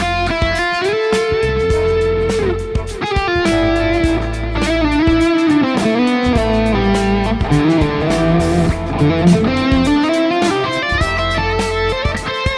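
Electric guitar played through a Hotone Ampero II multi-effects processor: a melodic lead line of held notes with string bends, over a backing track with a steady bass and drum beat.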